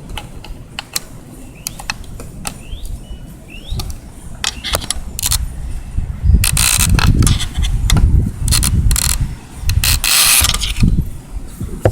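Plastic fuel pump assembly being handled and pried apart: a run of sharp clicks and knocks, with two longer spells of scraping and rattling about six and a half and ten seconds in.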